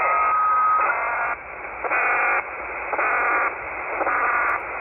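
Pulsing data pager interference on 27.940 MHz heard through a shortwave software-defined receiver: buzzy bursts of data noise about half a second long, roughly once a second, over receiver hiss. A steady whistle runs under it for the first second.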